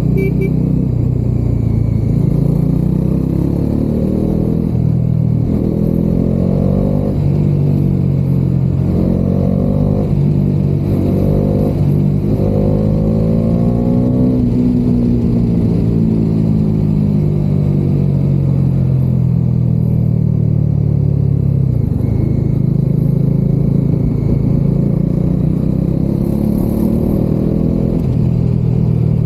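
Bajaj Dominar 400's 373 cc single-cylinder engine under way, heard from inside the rider's helmet. Its pitch rises several times in quick succession as it is revved up through the first half, then falls away slowly and settles into a steady run.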